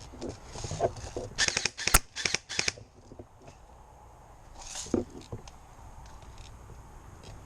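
Airsoft guns firing a quick string of sharp snaps between one and three seconds in, the loudest near two seconds, with another short noise about five seconds in.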